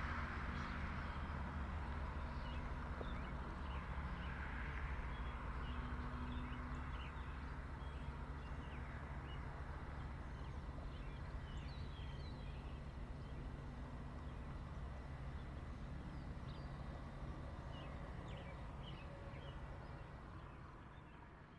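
Freight train rumbling steadily and slowly fading, with birds chirping over it.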